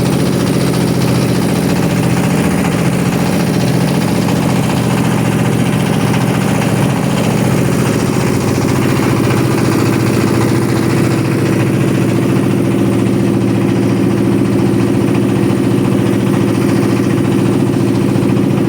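A boat's engine running steadily, heard from aboard: a loud, even drone with a constant low hum.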